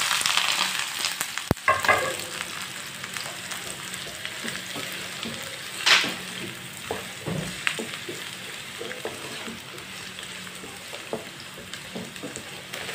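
Strips of bitter gourd sizzling in hot oil in a non-stick pan, loudest in the first couple of seconds as they go in, then settling to a steady sizzle. A spatula knocks and scrapes against the pan as they are stirred, sharpest about six seconds in.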